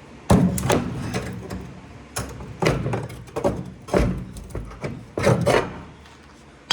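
A string of irregular knocks and scraping rubs, about eight over several seconds, as something is handled and shifted on a rusty floor pan. It ends with a short ringing metallic click.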